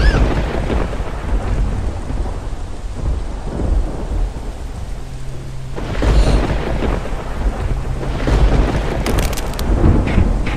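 Thunderstorm: steady rain with thunder, one clap right at the start and another rumbling in about six seconds later.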